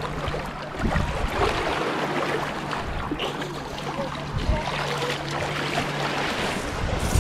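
Shallow surf sloshing and lapping around people wading, with a steady low hum underneath that stops near the end. Low thumps of wind on the microphone come about a second in and again about halfway through.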